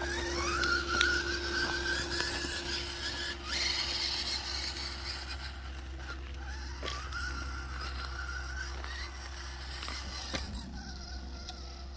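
Redcat Gen8 RC crawler's brushless motor and drivetrain whining as the truck climbs a dirt trail. The whine rises in pitch at the start and again about six seconds in, and grows fainter as the truck moves away.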